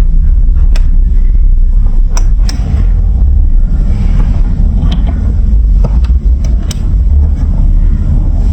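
Marbles rolling along a plastic building-block marble run: a steady low rolling rumble with a few sharp clicks as the marbles hit the plastic pieces.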